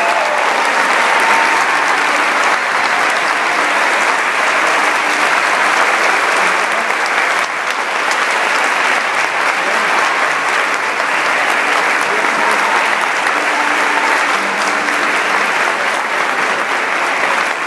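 A large audience applauding steadily without a break.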